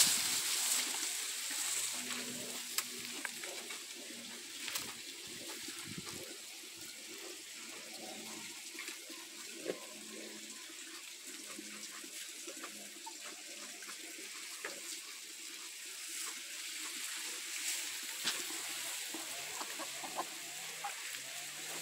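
Chickens clucking softly here and there over a steady hiss, with a thin high-pitched tone held throughout.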